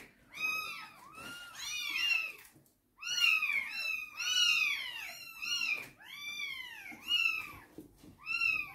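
Several cats meowing over and over, about a dozen high-pitched meows, each rising then falling in pitch, some overlapping one another.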